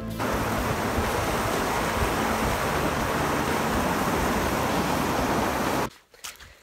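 Rushing whitewater of a small rapid and cascade, a steady loud rush heard from a canoe just below it. It cuts off suddenly near the end.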